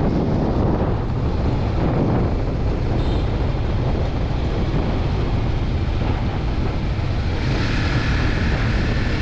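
Wind buffeting the microphone of a moving motorcycle, with the engine and road noise of a Honda CBR150R underneath. The hiss turns brighter about three quarters of the way through.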